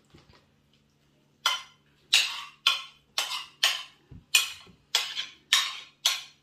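Metal spoon knocking and scraping against a ceramic plate while cabbage filling is pushed off it: about nine sharp clinks, roughly two a second, beginning about a second and a half in.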